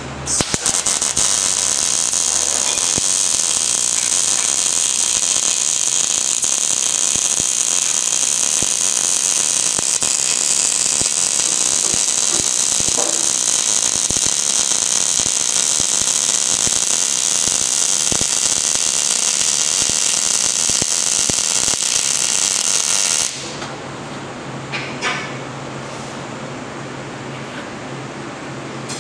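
MIG welding arc laying a bead on a sheet-steel stove body: a loud, steady, high-pitched hiss that starts just after the beginning and cuts off suddenly about 23 seconds in.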